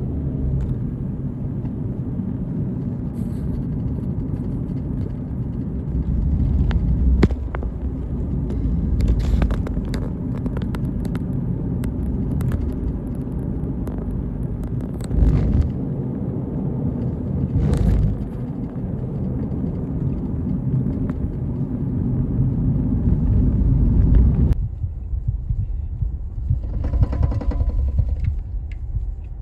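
A steady low rumble with scattered clicks and knocks. It drops off suddenly near the end, and a brief pitched sound follows.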